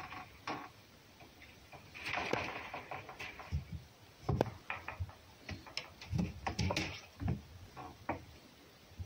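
Irregular light taps, clicks and scratchy rustling: a cat and a fox moving about on a box top, paws and claws on the board, with a cluster of knocks about five to seven seconds in.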